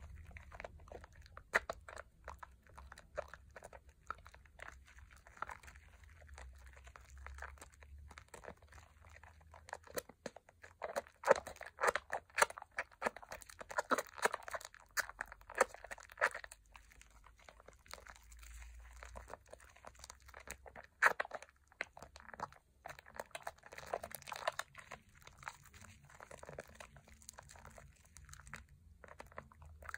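Hands squeezing and kneading thick Pears soap lather over a bowl of soapy water, a dense, uneven crackle of quick foamy clicks that is busiest around the middle.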